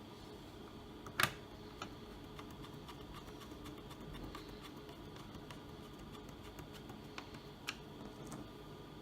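Small clicks and ticks of a screwdriver driving the last few screws back into a laptop's bottom case, with one louder click about a second in and a few more near the end.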